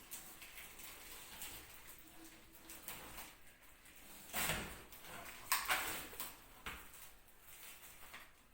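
Melamine plates and their packaging being handled: rustling and light knocks, loudest in two short bursts about halfway through.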